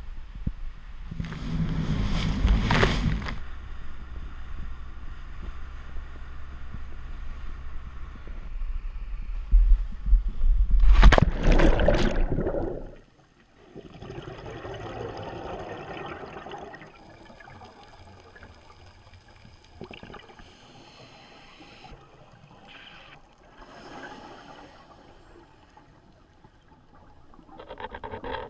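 Wind buffeting the camera microphone on the shore, with two louder gusts. After a sudden drop about halfway through comes the muffled sound of a camera in an underwater housing, with a diver's exhaled regulator bubbles gurgling every few seconds.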